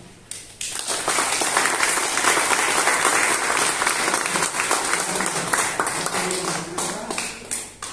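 Audience applauding, the clapping building up within the first second, holding steady and dying away near the end.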